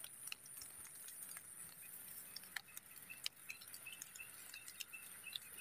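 Quiet outdoor ambience: scattered faint ticks, and in the second half a faint run of quick high chirps.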